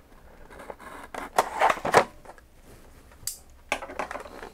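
A Gerber utility knife slicing through the tape sealing a boxed software package, a few scraping, rustling strokes about a second in. Near the end a short hiss and several sharp clicks as the box's clear plastic lid comes open.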